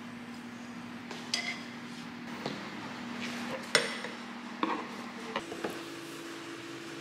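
Kitchen utensils tapping and clinking against a pan and dishes: about six short, separate clinks, the sharpest a little under four seconds in, over a steady low hum.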